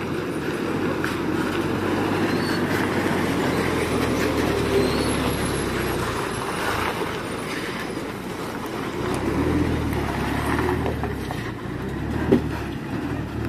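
Heavily overloaded Ashok Leyland truck's diesel engine running steadily under load as the truck moves slowly past. The engine fades for a few seconds midway, then comes back up, and there is one sharp knock near the end.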